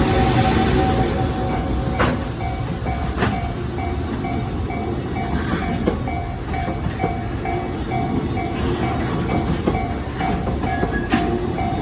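Container freight train rolling through a level crossing with a steady rumble and a few sharp clacks, while the crossing's warning bell rings on, repeating about three times a second.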